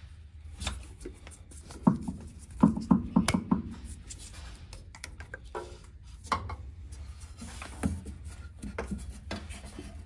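Rubber fuel hose being cut with a hand hose cutter: the tool's jaws click and snip, with handling of the hose and tools. There is a quick run of sharp clicks about three seconds in.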